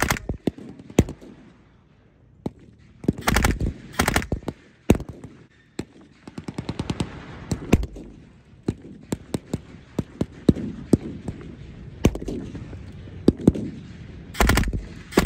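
Re-enactors' rifles and machine guns firing blanks: rapid machine-gun bursts about three and four seconds in and again near the end, with scattered single shots in between.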